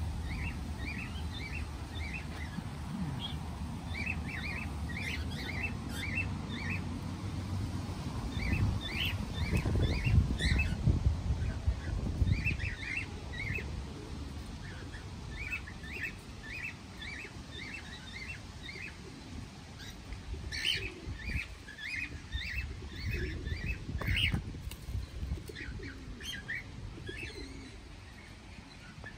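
Small birds chirping in quick runs of short, high chirps that repeat every second or two, with a low rumble underneath that is strongest in the first half.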